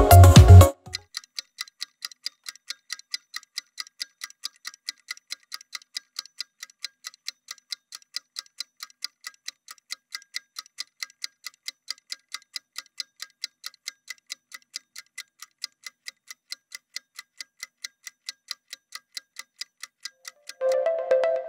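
Clock-like ticking sound effect, even ticks about three a second, counting down a rest break between exercises. Upbeat music stops just under a second in and comes back near the end.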